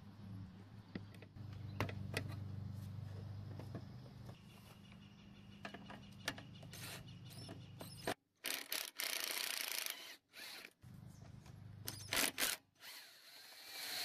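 Socket wrench and hand tools loosening the bolts on a lawn mower's carburetor and air-filter base: scattered metal clicks and scrapes, over a low hum through the first half, with a few short noisy bursts later on.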